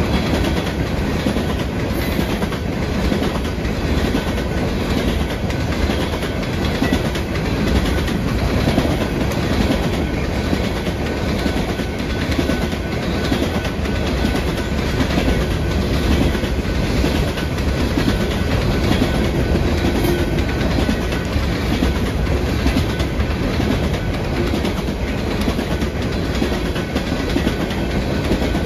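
Empty coal hopper cars rolling past at steady speed: a continuous rumble of steel wheels on rail with repeated clickety-clack as the wheels cross rail joints.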